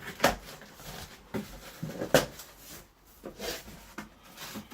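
Cardboard box packaging being handled and opened: scraping and rustling of cardboard and tape, with two sharp knocks, one just after the start and one about two seconds in.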